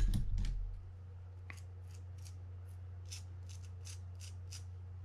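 A dull bump at the start, then a toothbrush scrubbing a small metal reel part, probably the pawl, in a run of short bristly strokes, a few per second, from about two seconds in. A steady low hum runs underneath.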